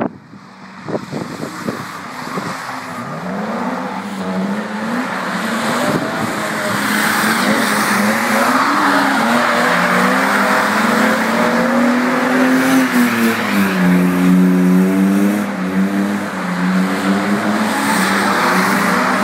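BMW E36 engines revving hard while drifting, the engine pitch rising and falling as the cars slide past, over continuous tyre squeal. The sound builds over the first several seconds, after a few sharp knocks near the start.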